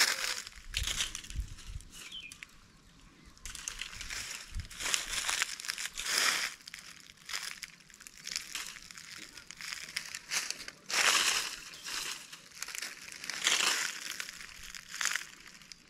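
Dry fallen leaves crunching and rustling in irregular bursts under sandalled footsteps and a metal detector's coil sweeping through the leaf litter.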